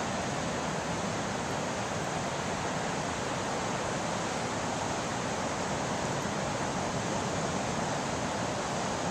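Ocean surf breaking on a sandy beach: a steady, even roar of waves with no separate crashes standing out.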